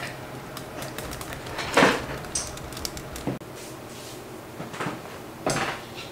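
Scattered household knocks and clatters: a louder one about two seconds in and another near the end, with a few light clicks between.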